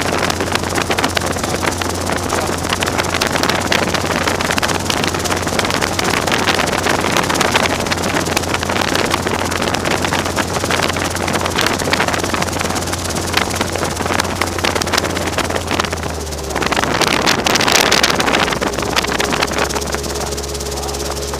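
Robinson R22 helicopter's engine and rotor running, a steady low drone with heavy wind noise on the microphone. About 16 s in, the pitch of the drone drops and the rush of noise briefly swells. Near the end the noise settles into a steadier, quieter hum.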